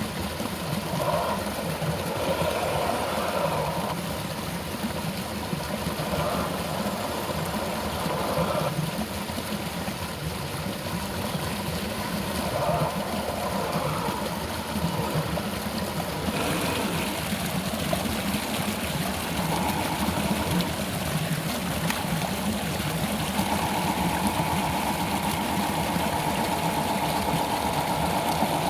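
Small electric motor and gearbox of an RC rock crawler whirring in surges as it climbs over rocks, over a background of flowing stream water. In the last few seconds the whine holds steadier.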